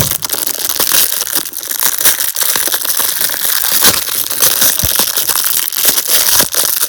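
Packaging crinkling and crackling continuously as it is handled to get the Beyblade top out.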